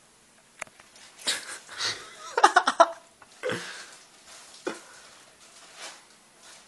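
A person laughing in breathy bursts. The loudest part is a quick run of laughs about two and a half seconds in.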